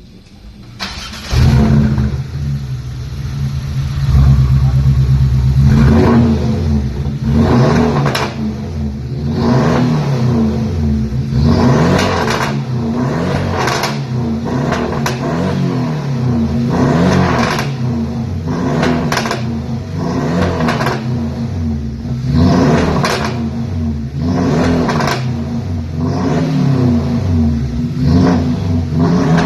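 Porsche 718 Boxster's turbocharged flat-four on a straight-piped exhaust with the muffler and resonator deleted. It starts about a second in, holds steady for a few seconds, then is revved again and again, with pops and crackles from the exhaust as the revs fall.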